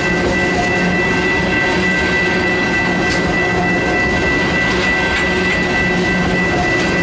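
Loaded tank cars of a freight train rolling past at a grade crossing: a steady rumble of steel wheels on rail with a few clicks over the joints, and a steady high ringing tone over it.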